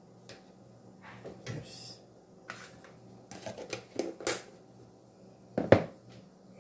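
A wooden spoon working in a metal cooking pot while cornmeal is stirred into water: scattered light taps and scrapes, with one sharp knock near the end.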